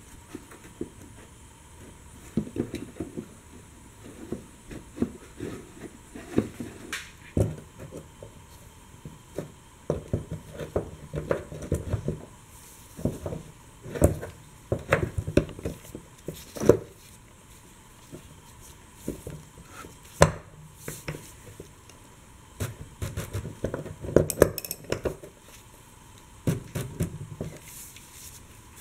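Irregular metal clinks and taps as the lock ring of a fuel tank's sending unit is worked back into place with a hand tool.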